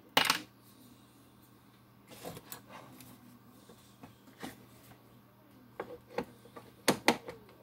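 Parts being handled on a workbench: scattered clicks and knocks as small metal pieces and a cylinder head are picked up and set down. The loudest knock comes right at the start, with a few lighter taps after it and a quick pair near the end.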